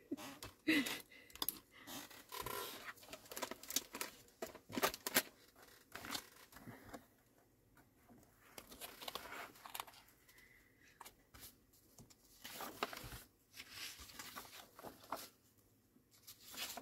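Paper rustling and scattered light clicks as a disc-bound paper planner with a plastic cover is handled and opened, and its pages are turned.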